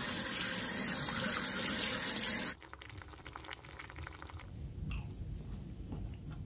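Kitchen tap running onto hands rinsing a Russula mushroom cap over a steel sink, a loud steady rush of water that cuts off suddenly about two and a half seconds in. After it, a much quieter bubbling from a pot of mushroom soup on the boil.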